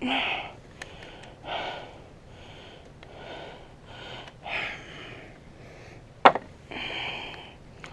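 A man breathing hard, with a breath every second or so; he is ill with bronchitis. One sharp click comes about six seconds in.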